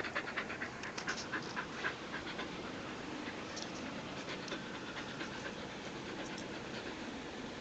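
A dog panting in quick, rhythmic breaths close by. The panting fades after about two or three seconds, leaving a faint steady hiss with a few weak breaths later.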